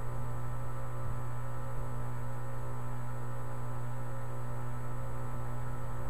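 Outdoor unit of a 2010 Tempstar 3-ton heat pump running steadily, with a constant low hum and a layer of fainter higher tones.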